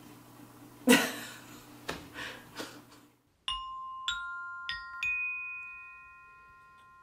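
A loud sudden noise about a second in and two softer ones after it, then four bell-like chime notes struck one after another, each higher than the last, ringing on together as a chord and slowly fading.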